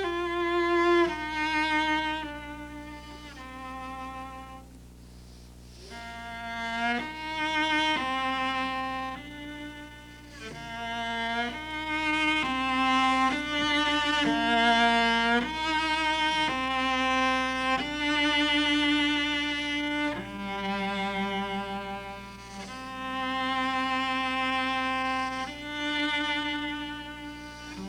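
Solo cello playing a slow, bowed melody of sustained notes, an orchestral cello solo excerpt, with a softer passage a few seconds in.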